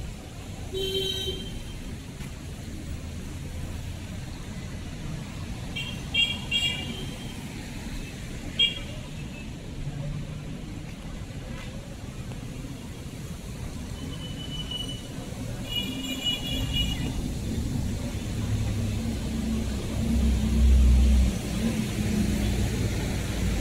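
Night street traffic, with vehicle horns giving several short, high beeps now and then. A passing vehicle's low rumble swells to its loudest a little before the end.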